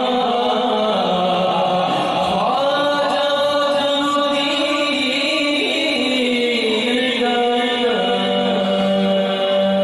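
A man singing a manqabat, a devotional poem, into a microphone, in long held notes that glide from one pitch to the next.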